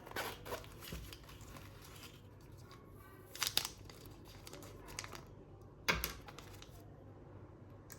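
Rustling and crinkling of handling, broken by scattered sharp clicks and knocks, the loudest about three and a half and six seconds in.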